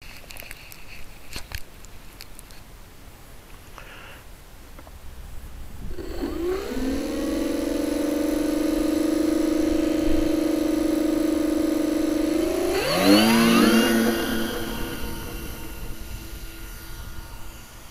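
Twin brushless electric motors of a radio-controlled B-25 model spinning up, with the propellers turning. After a few clicks, the whine rises and settles to a steady tone about six seconds in. Near the thirteenth second the throttle is opened and the pitch climbs sharply to its loudest, then the sound fades.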